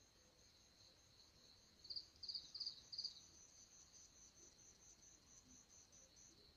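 Crickets chirping faintly in a steady high, fast-pulsing trill. About two seconds in, a closer one gives four louder chirps in quick succession.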